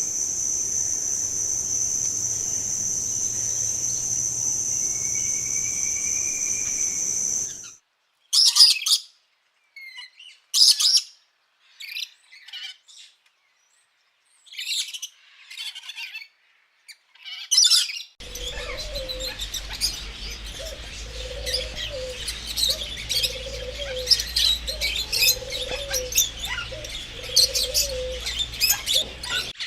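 Small birds chirping and calling in three abruptly joined stretches: first a steady high-pitched buzz, then single chirps separated by silence, then a busy chorus of chirps with a low, repeated call underneath.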